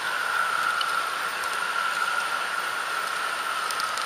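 H0-scale model train running along the track: a steady hiss of wheels rolling on the rails with a constant high whine from the locomotive's motor and gearing, and a few faint clicks near the end as it rolls over points.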